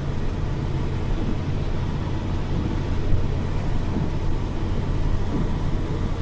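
Steady low rumble of a minibus driving along a wet road, heard from inside the cabin: engine and tyre noise.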